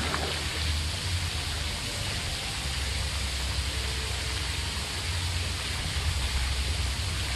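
Steady, even rush of running pool water.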